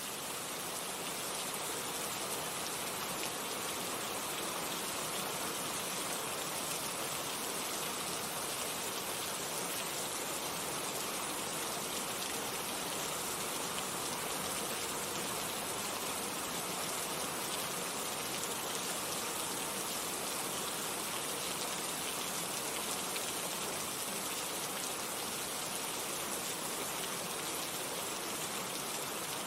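Heavy rain falling steadily, an even hiss of drops that holds at one level throughout.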